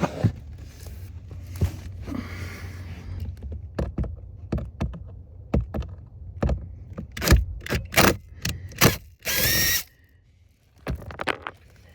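Hand tool work on the plastic cabin filter housing cover while its Torx screws are removed: a run of sharp clicks and knocks, with a short burst of noise about nine seconds in.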